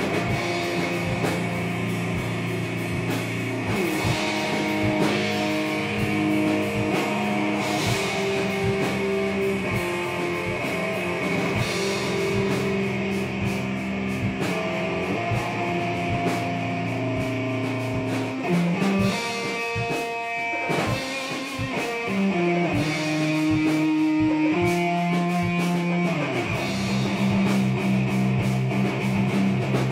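Instrumental rock jam: guitar playing sustained, changing notes over a drum kit keeping a steady beat.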